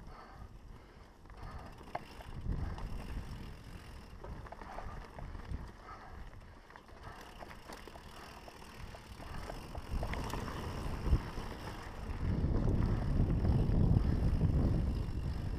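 Mountain bike riding fast down a dirt singletrack: tyres rolling on the dirt and the bike rattling over bumps, with scattered sharp knocks, the loudest about eleven seconds in. A low rumble of wind and tyre noise grows louder in the last few seconds.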